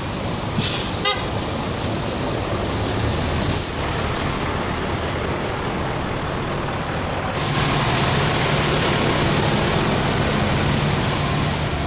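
Vehicle engines running in a bus parking lot, with a brief sharp click about a second in. From about seven seconds in, a tour bus's engine idles up close with a steady low hum, and the whole sound grows louder.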